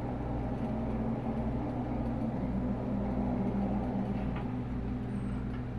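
A low, steady droning hum with a faint wavering tone above it.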